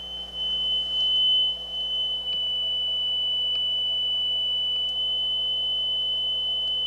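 Steady 3 kHz test tone from a speed calibration tape playing on a Nakamichi CR-1A cassette deck, a little louder for a few seconds in the middle. The deck is running slightly fast (reading about 3.05 kHz) while its motor speed is being trimmed.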